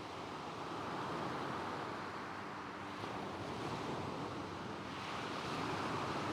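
Gentle waves washing onto a stony shingle beach, the surf swelling and easing about three times, with a soft coastal wind.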